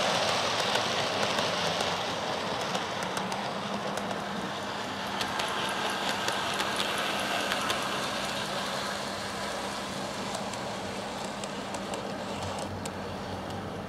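OO gauge model train running along the track: a steady rolling noise with wheels clicking over rail joints, slowly fading as the freight wagons pass. A low steady hum sits under it for a few seconds in the middle.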